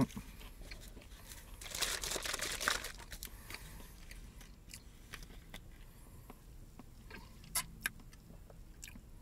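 Handling of a small plastic orange juice bottle: a short rustling, sloshing noise about two seconds in, then quiet handling with the cap being twisted, and two sharp clicks near the end.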